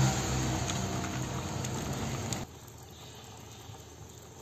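Pot of chicken in coconut-water broth boiling on the stove, with peanuts just added: a steady bubbling hiss with a few light clicks. It cuts off abruptly a little past halfway through, leaving only faint background.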